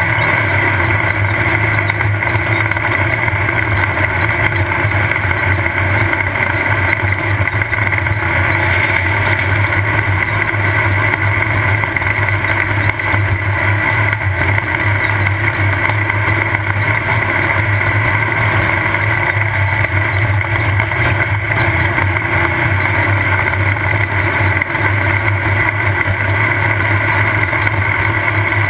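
Off-road race car's engine running hard at a steady pace, heard from on board; loud and unbroken.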